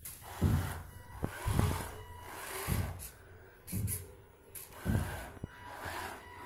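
Small DC gear motors of a homemade obstacle-avoiding robot car running as it drives over carpet, with a faint thin whine that comes and goes. Soft thumps recur about once a second.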